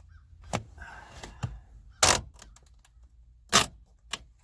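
Sharp clicks and knocks from hands working inside a pickup truck's opened door, about five in all, with a brief rustle after the first; the loudest knocks come about two seconds in and about three and a half seconds in.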